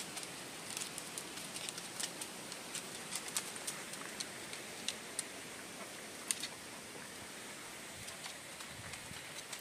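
Small dogs moving about close by: faint, irregular light clicks and ticks over a steady hiss.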